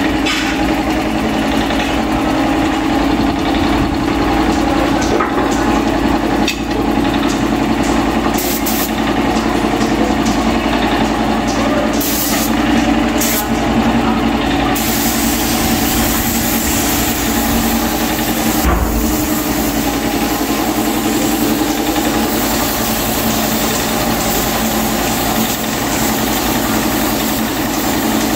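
Air compressor running steadily with the hiss of an air spray gun spraying clear coat. The hiss comes in a few short bursts at first, then runs continuously from about halfway through.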